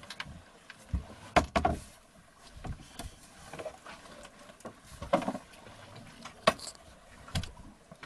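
Gear knocking and clattering as someone rummages through a sailboat's cockpit locker and pulls out a bag, with a few sharp knocks and rustling in between.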